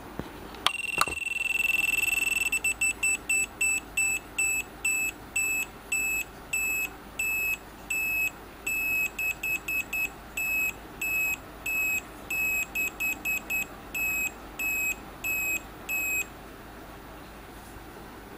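Sailor Moon Eternal Moon Article compact toy's electronic beeper playing its sound: a click about a second in, one long high beep, then a long run of short high beeps at nearly one pitch in an uneven, tune-like rhythm that stops a couple of seconds before the end.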